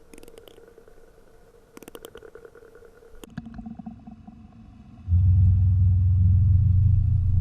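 A beatboxer's vocal imitation of underwater sounds: faint rapid clicks in two short runs over a thin steady tone, then about five seconds in a loud, low steady hum.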